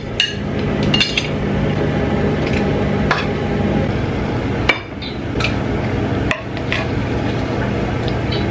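Cooking utensils knocking and scraping against a frying pan as food is scooped from it into a bowl: a handful of sharp clinks and knocks at irregular moments. A steady low hum runs underneath.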